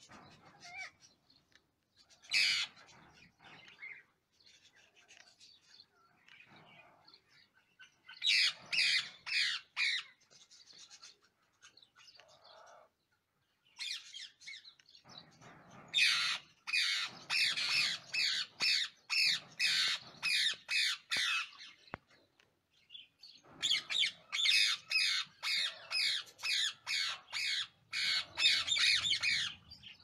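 Rose-ringed parakeets giving rapid, rhythmic feeding or begging calls during formula feeding. The calls come at about three a second, in runs of several seconds: a short run near the start, a long one about halfway, and another near the end.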